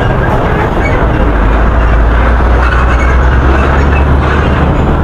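Road traffic, with a heavy truck's engine rumbling low and loudest through the middle.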